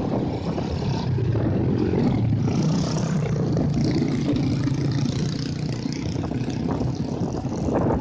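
Heavy surf breaking on a beach: a steady, low rumble of waves with wind buffeting the microphone.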